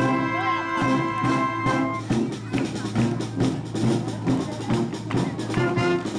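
A school brass band playing live: brass holds a long chord, then about two seconds in the band moves into a steady beat of short notes with drums.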